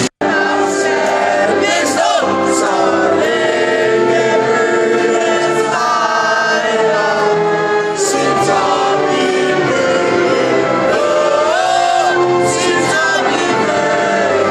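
A crowd of Danish supporters singing a chant together in unison, many voices in a large hall. The sound drops out for a moment just after the start.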